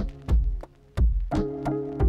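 Background music: a drum beat with deep kick hits and sharp percussion over sustained chords.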